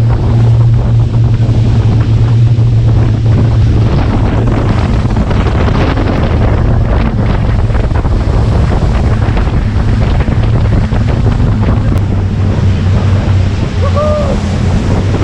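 Motorboat engine running at a steady drone under rushing water and wind buffeting the microphone.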